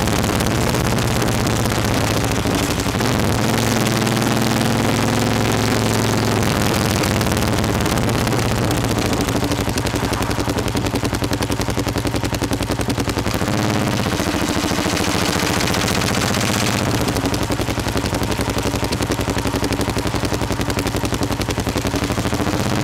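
Motorcycle engine running under way, heard from an on-board camera with rushing wind and road noise; the engine note climbs a few seconds in and drops past the middle.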